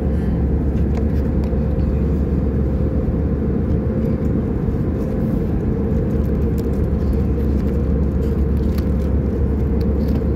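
Steady low cabin noise of a jet airliner in flight, with faint light clicks of a plastic meal box being handled.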